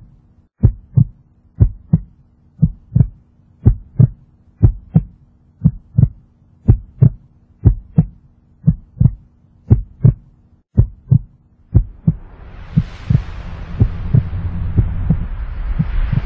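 Heartbeat sound effect: slow paired thumps, lub-dub, about once a second, over a faint steady hum. About twelve seconds in, a rumbling roar swells up and grows loud beneath the beats.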